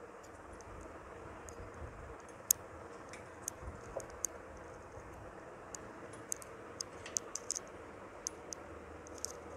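Irregular light clicks and ticks, a dozen or so, the sharpest about two and a half seconds in, over a faint steady room hum.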